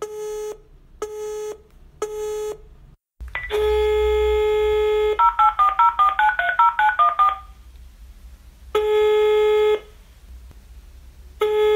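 A call being placed: three short electronic beeps a second apart, a longer tone, a quick run of electronic notes jumping in pitch, then two one-second ringing tones about two and a half seconds apart. These are the ringback signals of a call still waiting to be answered.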